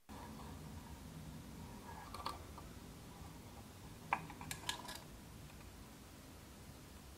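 Small clicks and taps of wires and a soldering iron being handled at a potentiometer's solder lugs, one about two seconds in and a cluster about four seconds in, over a steady low room hum.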